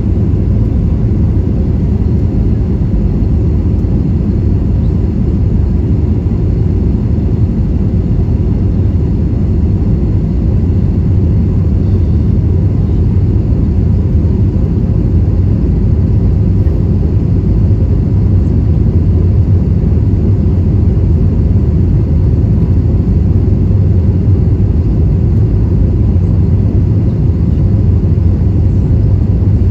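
Steady low cabin drone inside an Airbus A320-232 in flight, the mix of its IAE V2500 turbofan engines and airflow over the fuselage, heard at a window seat, during the approach to landing. It holds even throughout, with a few faint steady whines above the rumble.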